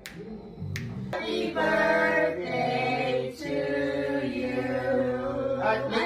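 A single finger snap, then singing with long, held notes from about a second in.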